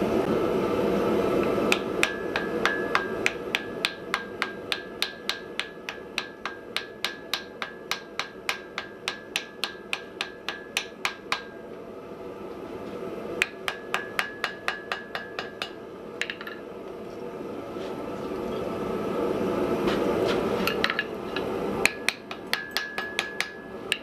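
Hand hammer forging red-hot wrought iron on an anvil: runs of quick, even blows, about three a second, each ringing on a high note. A long run of blows is followed by two shorter ones, over a steady rushing noise that grows louder in the pauses.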